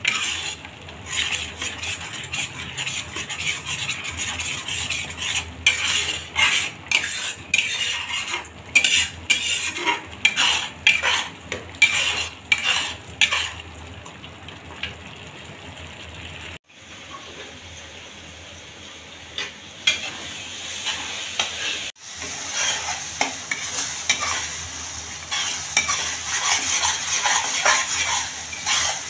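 A spatula stirring and scraping a thick masala paste as it fries and sizzles in a pan. The scraping strokes come quickly and loudly at first. A quieter stretch of steady sizzling follows in the middle, then the stirring picks up again toward the end.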